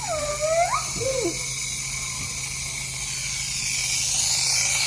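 A baby makes a few short wavering coos or whimpers in the first second or so. Under them runs the steady hiss and low hum of a nebulizer machine.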